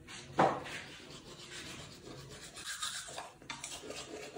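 Toothbrush scrubbing against teeth: someone brushing their teeth, a soft, uneven scratchy rubbing, with one short louder sound about half a second in.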